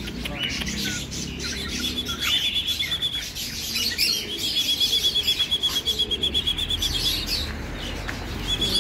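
Caged songbird singing: scattered short chirps, then fast, even trills held on one high pitch, one about a second long and one about two and a half seconds long.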